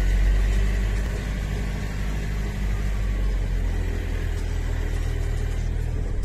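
Car engine and road rumble heard from inside the cabin while driving slowly, a steady low drone.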